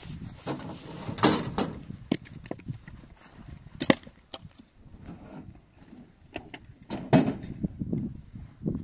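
Chunks of firewood being handled and tossed from a pickup truck bed onto hard, stony ground, landing with a series of sharp wooden knocks; the loudest come about a second in, just before four seconds in and about seven seconds in.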